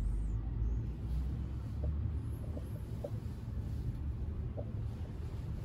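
Low background rumble with a few faint, short clicks of steel knives being handled: one set down and the next picked up from among knives laid on a cloth.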